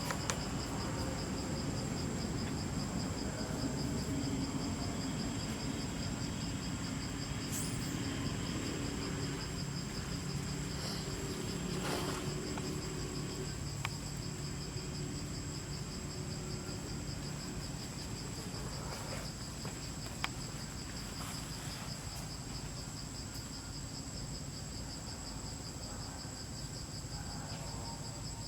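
Insects trilling steadily outdoors: a high, even, fast-pulsing drone with a second, higher steady tone above it, over a low rumble and a few faint clicks.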